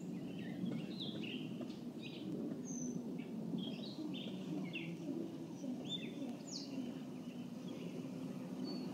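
Birds chirping in short, scattered calls over a steady low background noise.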